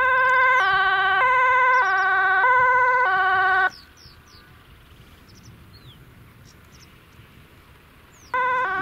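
MAN fire engine's electronic two-tone siren, switching steadily between a high and a low tone about every 0.6 seconds. It cuts off suddenly about three and a half seconds in, leaving faint high chirps, and starts again near the end.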